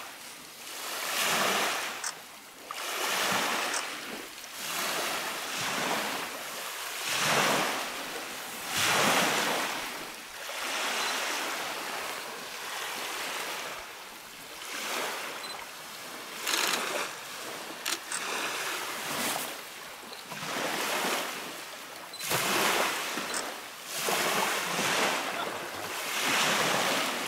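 Lake waves washing onto a gravel shore in repeated surges every second or two, with some wind on the microphone.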